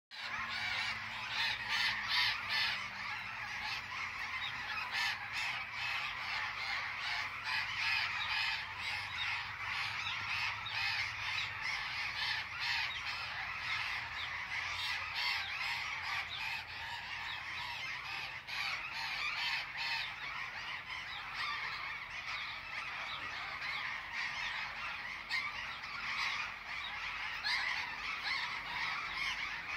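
A large flock of birds calling together: a dense, continuous chatter of many overlapping calls.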